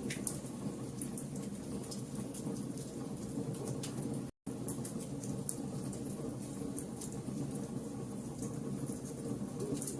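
Fire burning with a steady low rumble and irregular sharp crackles and pops. The sound cuts out completely for a split second about four seconds in.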